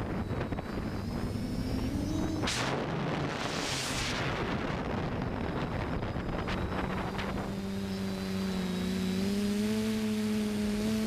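FPV quadcopter's motors and propellers heard from the onboard camera, with wind gusting over the microphone in the first half. From about seven seconds in the motors settle into a steady low hum.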